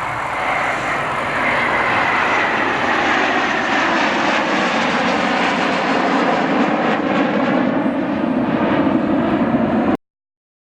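A formation of BAE Hawk jet trainers flying past with a loud, steady engine roar and a whine that falls slowly in pitch as they pass. The sound cuts off suddenly near the end.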